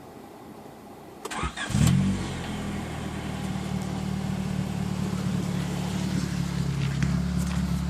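1989 Honda Prelude 2.0 EX four-cylinder engine being cranked and catching about a second and a half in, then settling into a steady idle through a custom 2.5-inch cat-back exhaust with a bassy note.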